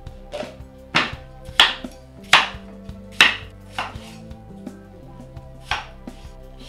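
Kitchen knife chopping cucumber into chunks on a cutting board: a run of sharp, uneven knocks as the blade strikes the board, about seven in all, with a gap of nearly two seconds before the last ones.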